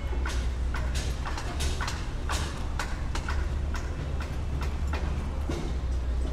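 Construction-site ambience layered over traffic: a steady low rumble with irregular sharp knocks and clanks, about two a second.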